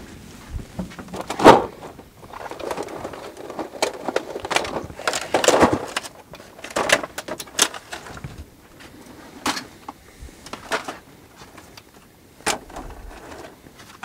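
A hard plastic tool case being handled and opened: a string of sharp clicks and knocks, the loudest about a second and a half in, with a busier stretch of rustling and clatter near the middle.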